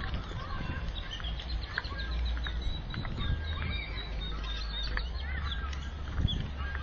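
Many birds chirping and calling at once, short whistles and slurred notes overlapping, over a steady low rumble on the microphone.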